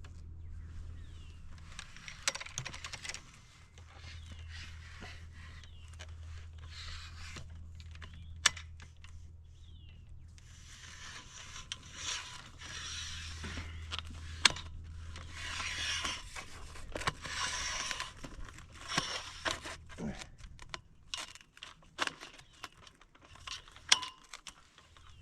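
A flag flapping and rustling in strong wind as it is hoisted up a flagpole, with wind rumble on the microphone and a few sharp metallic clinks.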